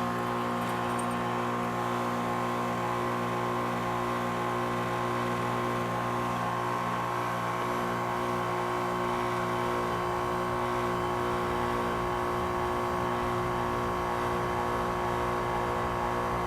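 2001 Trane XE1000 heat pump outdoor unit running in its defrost cycle: a steady hum with several held tones. One of the lower tones drops out about ten seconds in.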